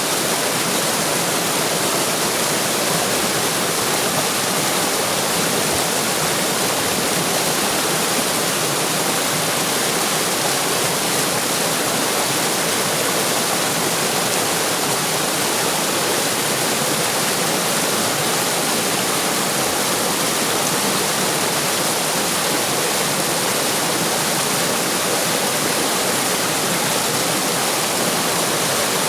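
Water rushing and splashing in a stream or small waterfall: a steady, unbroken wash of sound.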